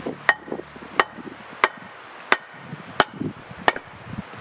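A wooden baton striking the back of a large forged froe's blade six times, about one blow every two-thirds of a second, driving it down through a round of wood to split it.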